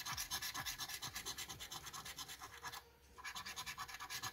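A coin scratching the coating off a lottery scratch-off ticket in rapid back-and-forth strokes, with a short pause about three seconds in.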